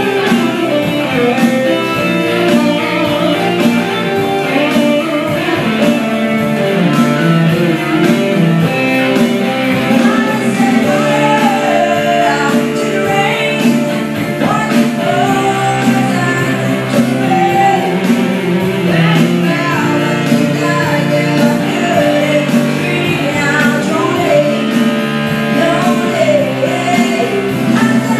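Live music: a woman singing into a microphone over electric keyboard accompaniment, a slow pop ballad played by a small duo.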